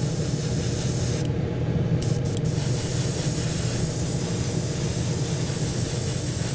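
Airbrush spraying paint onto a small plastic model part: a steady hiss of air over a low hum. The hiss breaks off for a moment about a second and a half in, then resumes.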